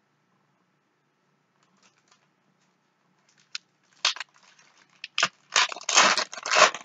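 A trading-card pack being torn open and its foil wrapper crinkled. The rustling crackle starts about halfway through, after a near-silent stretch, and grows louder and denser.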